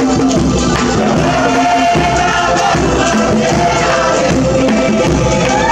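Live Cook Islands dance music: a group of voices singing together in a chant-like song at a steady loud level, with percussion underneath.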